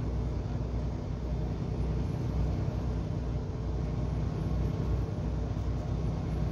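Steady low drone of a semi-truck's engine and tyre noise heard inside the cab while cruising on the highway.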